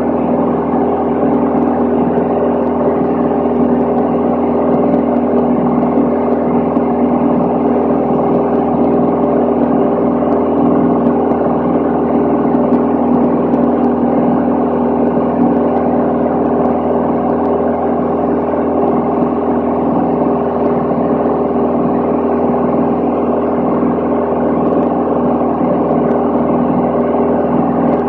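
Cabin noise of a Van's RV-10 single-engine light aircraft in steady flight: the constant drone of its piston engine and propeller, an unchanging hum of several steady tones over a rush of airflow.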